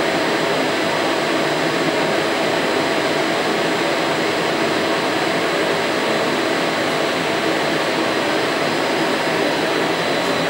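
Steady rushing machine noise of a 3DLAM laser powder-bed metal 3D printer at work melting stainless steel powder, with a few thin high whines over it.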